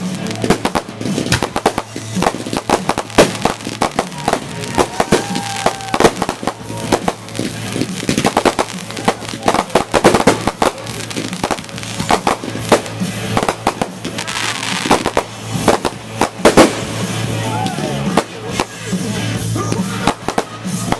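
Fireworks going off in rapid succession: a dense run of sharp bangs and crackles, several a second, as aerial bursts follow one another.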